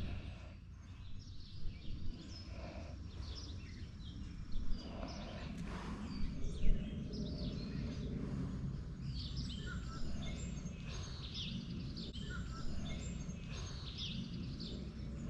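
Outdoor ambience: scattered bird chirps over a steady low rumble, with a few short knocks.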